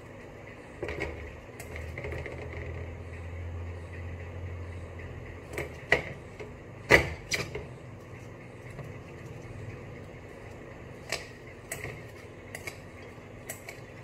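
Raw whole chicken being handled in marinade in a glass mixing bowl: a series of sharp wet knocks and clinks as it is lifted, dropped and rubbed against the bowl, the loudest about seven seconds in.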